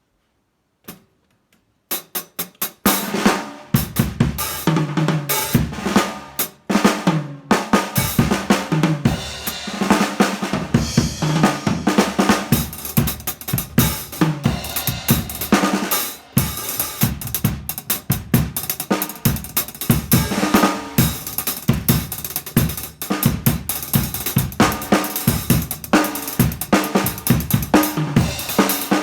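Drum kit being played: a few loose hits about two seconds in, then a busy, fast beat of sharp strikes and ringing cymbals.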